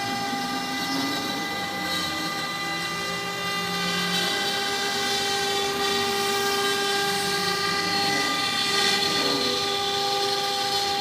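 CNC router cutting wood: the spindle gives a steady high whine made of several held tones over the noise of the cutter in the wood, while lower motor tones change pitch now and then as the machine moves.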